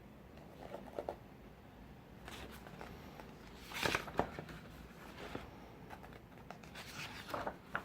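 Pages of a photobook being turned and handled: soft, scattered paper rustles, the loudest about four seconds in.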